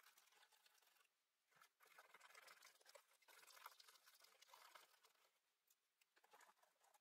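Faint scratchy rubbing of a rubber cleaner over 300 g watercolour paper, lifting dried masking ink off the painting. It comes in uneven stretches with two short pauses, about a second in and again near six seconds.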